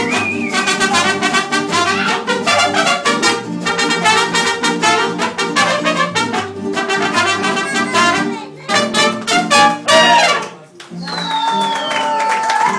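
Live mariachi band playing a rhythmic piece led by trumpets over a strummed beat. About ten seconds in the music breaks off briefly, then a single long held note follows.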